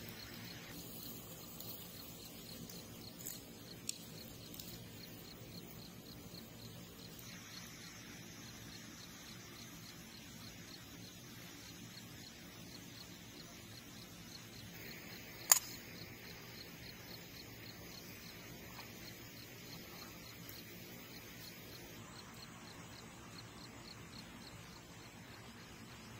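Faint steady outdoor background hiss, with a single sharp snap about halfway through and a softer click a few seconds in.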